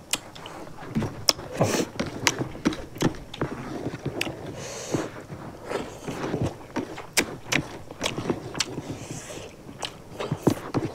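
Close-miked eating by hand: wet chewing and lip smacks with many irregular sharp clicks, along with fingers mixing rice on steel plates.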